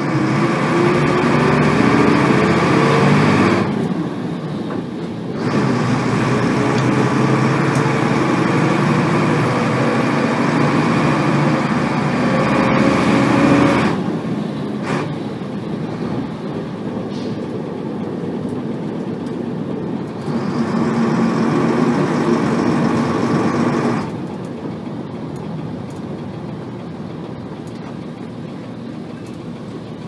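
Nissan Diesel FE6 six-cylinder diesel of a 1990 RM city bus, heard from inside the cabin, pulling hard and revving high in each gear. Its note rises for about three and a half seconds, falls away, then climbs again from about five seconds to fourteen, pulls once more a little past twenty seconds, and settles lower near the end. The transmission has the gear whine that marks this bus as a noisy one.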